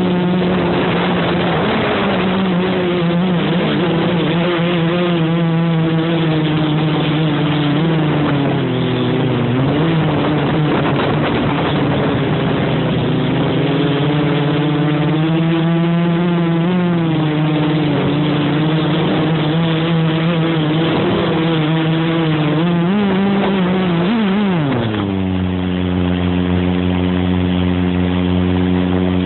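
Quadcopter's electric motors and propellers buzzing in flight, the pitch wavering up and down with the throttle. About 25 seconds in the pitch drops sharply and settles into a steady lower hum.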